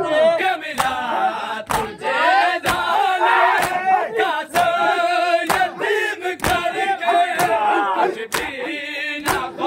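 A group of men chanting a noha together, with sharp chest-beating (matam) strikes on a steady beat a little under once a second.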